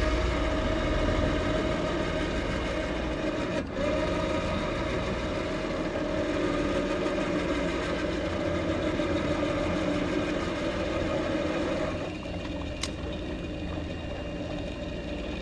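Electric trolling motor running with a steady whine, dropping to a lower level about twelve seconds in.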